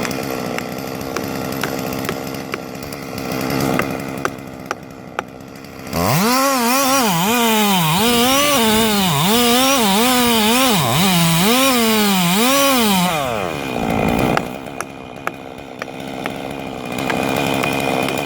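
Chainsaw running. For about seven seconds in the middle it is louder, its pitch rising and dropping again and again, then it winds down, leaving a quieter steady engine sound with a few sharp clicks.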